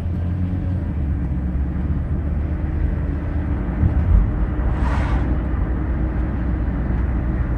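Car engine and road noise heard inside the cabin while accelerating, a steady low rumble. A brief whoosh, like a passing vehicle, about five seconds in.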